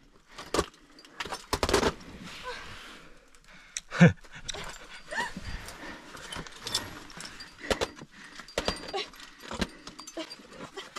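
A climber breathing hard and grunting with effort while working through a difficult move, with short metallic clinks and scrapes of climbing gear on rock. A loud grunt comes about four seconds in.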